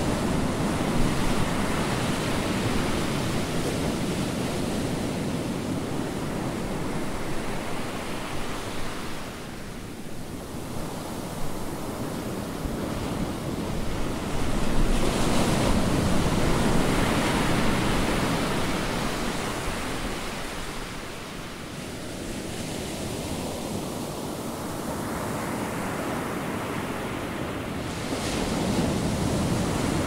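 Ocean surf breaking on the beach: a continuous wash of noise that swells and eases slowly, loudest about halfway through and again near the end.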